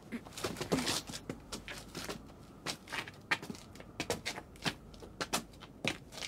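Footsteps of two people walking, irregular short steps about three a second, as a sound effect.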